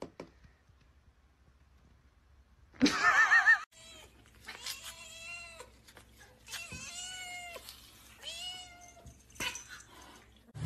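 Domestic cats meowing: a short, loud, warbling call about three seconds in, then a run of drawn-out meows that rise and fall in pitch.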